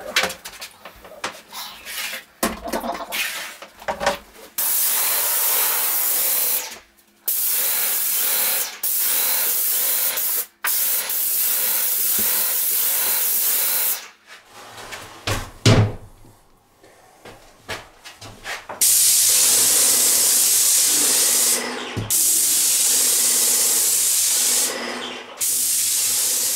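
Airless paint spray gun of a Wagner Control Pro 250M hissing in a series of bursts of two to four seconds as the trigger is pulled and released, each burst cutting off suddenly. Between bursts there is quieter handling noise, with a thump about halfway through.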